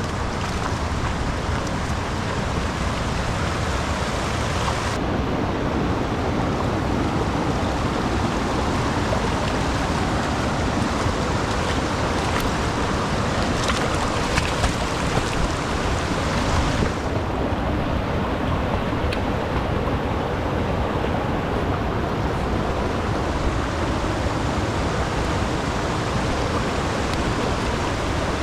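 Steady rushing of flowing river water, with no breaks. The sound turns duller about five seconds in and again near seventeen seconds.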